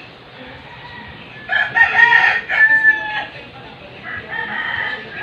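Rooster crowing: one loud crow about a second and a half in, then a second, fainter crow near the end.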